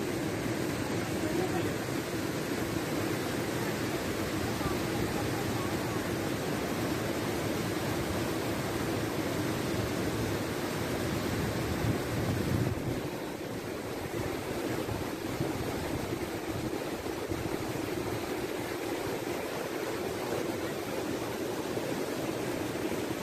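Kunhar River's whitewater rapids rushing over rocks, a loud steady rush of a mountain river in high flow; it dips a little about halfway through.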